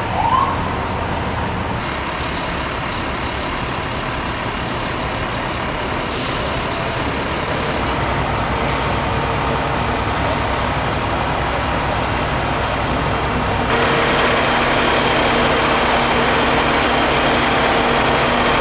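Idling diesel engines of parked fire trucks, a steady rumble. There is a short rising tone at the very start and a brief hiss of air about six seconds in, like an air brake releasing. The engine noise grows a little louder about two-thirds of the way through.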